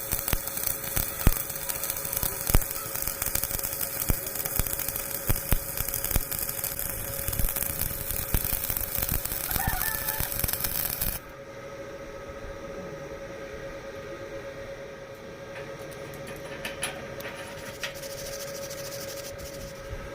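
Stick-welding arc crackling and spitting steadily for about eleven seconds, then cutting off suddenly as the arc is broken. Afterwards a steady hum remains, with a rooster crowing faintly just before the arc stops.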